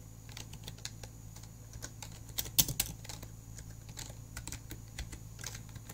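Typing on a computer keyboard: an irregular run of key clicks, with a few louder keystrokes about two and a half seconds in, over a faint steady low hum.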